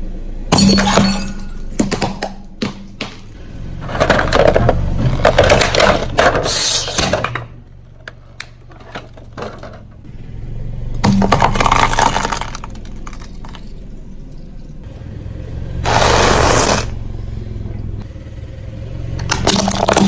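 A car tyre rolling slowly over brittle objects and crushing them: repeated bouts of cracking and crunching, a long crackling run a few seconds in, another around the middle and a loud burst near the end, over the car's low engine hum.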